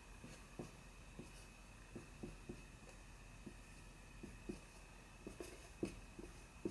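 Dry-erase marker writing letters on a whiteboard: a series of short, faint strokes and taps.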